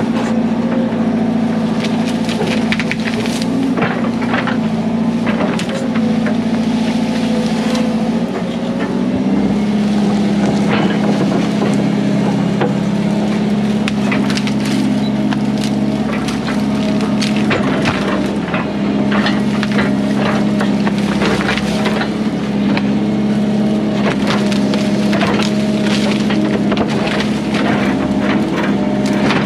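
Volvo 140 excavator's diesel engine running steadily as it works, its note shifting slightly about eight seconds in. Over it come many sharp cracks and snaps of branches and small trees breaking as the bucket and thumb push through brush.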